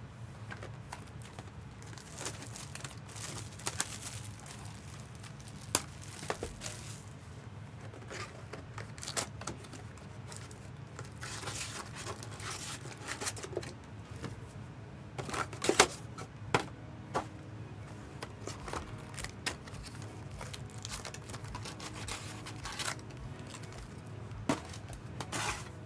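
Trading-card pack wrappers being torn open and crinkled, with scattered sharp rustles and clicks as the packs and cards are handled, over a steady low hum.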